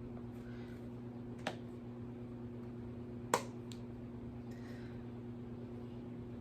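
A few sharp plastic clicks from handling a phone and its case, the loudest a little past the middle, over a steady low electrical hum.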